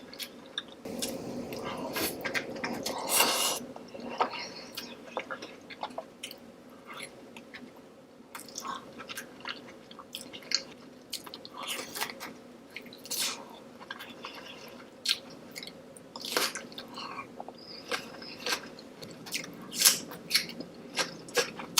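A person eating king crab seafood boil in a creamy sauce: wet chewing and biting with irregular sharp smacks and crunches, the loudest about 3, 13 and 20 seconds in.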